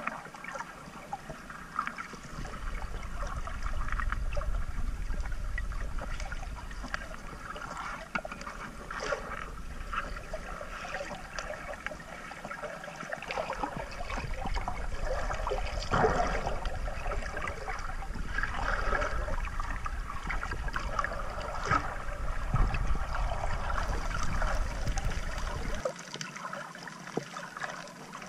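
Underwater sound of the sea picked up by a camera held below the surface: muffled sloshing water with a low rumble and many scattered crackling clicks. The rumble dips briefly about halfway through and stops near the end.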